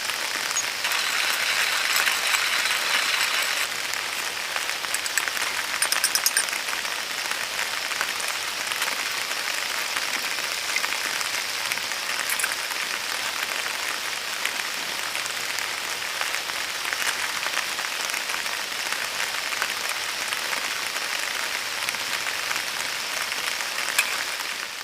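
Steady rain falling, with many small drop ticks throughout and a short rattle of sharper ticks about six seconds in.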